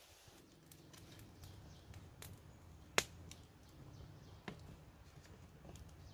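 Wood fire crackling under a wok of mussels, scattered sharp clicks and pops with one loud pop about three seconds in, over a low steady rumble.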